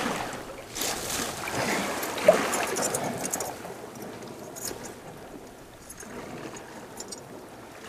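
Water sloshing and splashing in a shallow rock pool as an arm works in it among the seaweed, louder for the first three seconds or so, then quieter.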